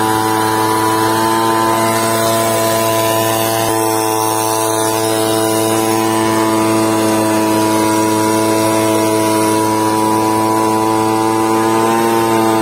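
Backpack brush cutter's small petrol engine running steadily at high speed while cutting grass, a constant high-pitched drone.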